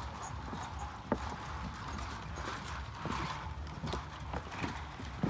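Footsteps on the wooden plank deck of a suspension footbridge: irregular knocks and clatters of planks underfoot, about one a second, the sharpest about a second in, over a steady rushing background.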